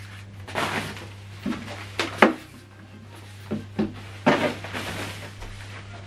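Handling noise as a soundbar is set down on a tabletop: several separate knocks and thuds, the sharpest a little over two seconds in, mixed with short scuffs and rustles. A steady low hum runs underneath.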